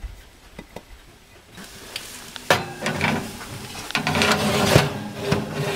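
An oven is opened with a sharp clack about two and a half seconds in, and a hot casserole dish is handled at the oven with clattering knocks and a hissing sizzle from the freshly melted cheese topping.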